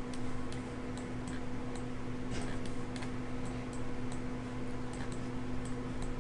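Computer mouse clicking, short sharp clicks at an irregular pace of about two a second, over a steady low electrical hum.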